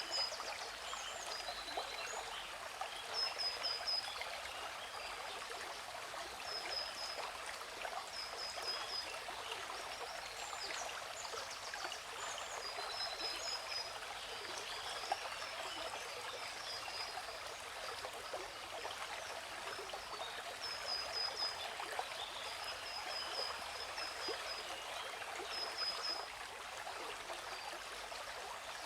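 Waterfall rushing as a steady, even hiss. Over it, a bird repeatedly sings short runs of three or four quick, high chirps every couple of seconds.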